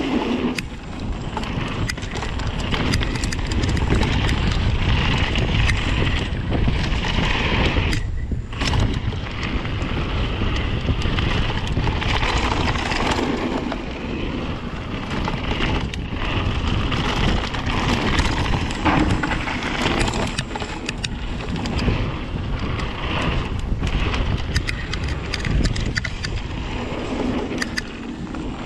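Rocky Mountain Slayer mountain bike descending a dirt trail: steady rushing of the tyres over the ground with dense clicking and rattling from the bike, and wind buffeting the camera microphone. A brief lull about eight seconds in.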